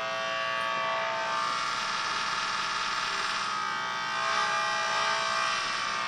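Audible electromagnetic field detector (IMC (a)EMF II with probe A) giving a steady electrical buzz made of many stacked tones from its speaker. It is rendering the field around an idle microwave oven, mostly interference from the room's lighting.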